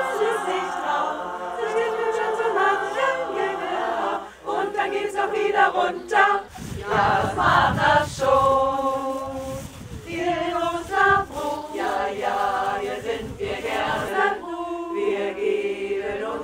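Women's choir singing a song unaccompanied, several voices together. About six seconds in, a low rumbling noise runs under the singing for a few seconds.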